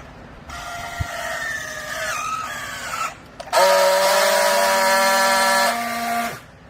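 Hydraulic cloth compress baler giving a loud pitched whine with overtones in two spells. The first wavers in pitch for about two and a half seconds; the second is louder and steady for about three seconds, then cuts off suddenly.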